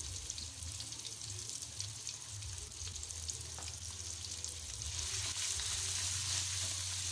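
Ground chili and shallot spice paste sizzling in hot oil in a wok as it is sautéed, a steady crackling hiss. It grows louder about five seconds in, as a spatula starts stirring the paste around the pan.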